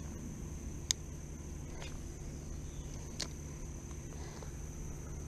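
Steady high-pitched drone of insects. A sharp click comes about a second in and a fainter click about three seconds in.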